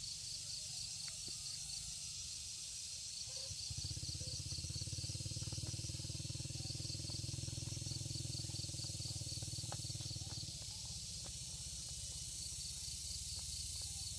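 Faint rural outdoor ambience: a high, pulsing insect chirp goes on throughout, under a low motor hum that swells from about four seconds in and fades after about ten seconds.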